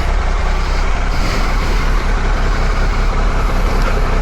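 Triumph motorcycle engine running steadily, a loud continuous low rumble with hiss over it.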